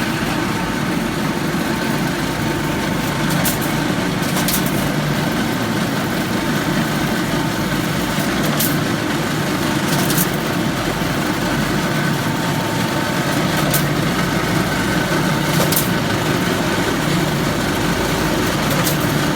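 Wire straightening and cutting machine running with a steady mechanical hum, with a short sharp click every few seconds.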